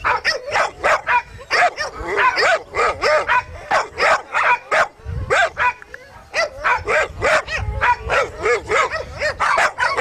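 Dogs barking over and over, short sharp barks at about three a second.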